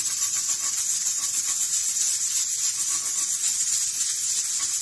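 Stovetop pressure cooker venting steam through its weighted pressure regulator: a loud, steady hiss, the sign that the cooker has come up to pressure.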